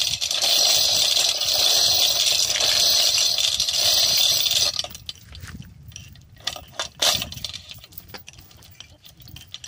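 Hand chain of a manual chain pulley block rattling continuously as it is pulled hand over hand to hoist a borewell pump's pipe. The rattling stops abruptly about halfway through, leaving scattered chain clinks with one sharp clink a couple of seconds later.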